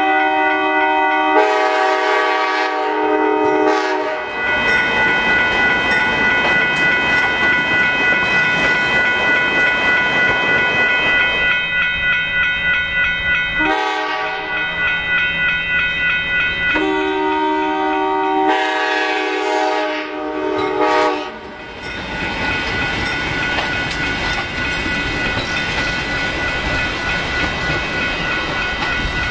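Amtrak GE P42DC diesel locomotive's air horn blowing long chord blasts at the start and again about halfway through, over a grade-crossing warning bell ringing steadily. Between the blasts the slow train's wheels and cars roll and click over the rails.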